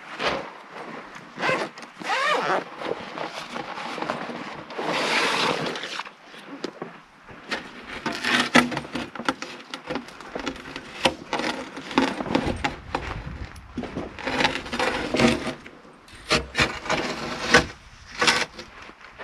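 Handling noises as a Goal Zero solar panel is pulled from its fabric carrying case and stood up on its folding stand: fabric and panel rubbing and scraping, broken by many short, sharp knocks and clatters.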